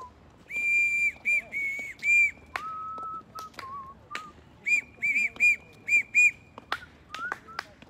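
A small whistle blown in a run of short, steady-pitched toots, some held about half a second. The first and last groups are high notes, with a group of lower notes between them. Light clicks are scattered throughout.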